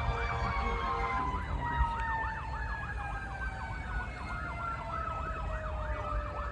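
Emergency vehicle sirens sounding at a crash scene: one in a rapid up-and-down yelp, about three cycles a second, another holding a long tone that slowly falls in pitch. Under them runs the low rumble of freight cars rolling over the crossing.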